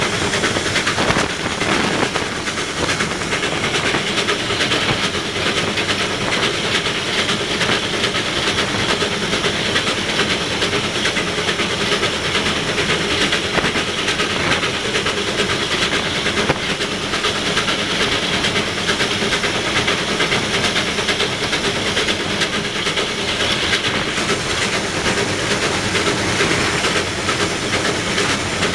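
Steam locomotive running under way, heard from its own footplate: a steady, loud din of exhaust, steam and running gear on the rails.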